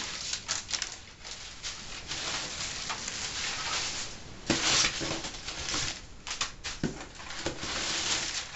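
Packing material and a cardboard box rustling and crinkling as they are handled by hand, with scattered crackles and a louder rustle about five seconds in.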